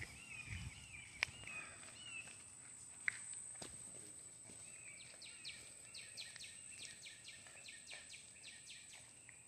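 Faint outdoor ambience of small animals: runs of short chirps repeating about four times a second, starting again about five seconds in, over a steady high-pitched tone, with a few soft taps.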